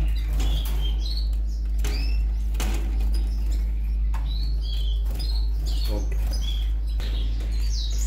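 Canaries chirping, many short high arched chirps repeating over and over, over a steady low hum and a few light handling knocks.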